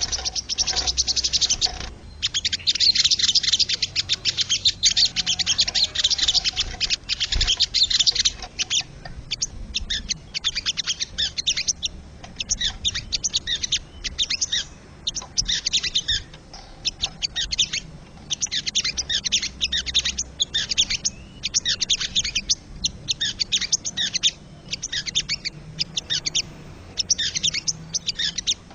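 Crested jay (sogon) calling: rapid, high-pitched chattering phrases repeated in bouts of a second or two, densest and loudest in the first several seconds.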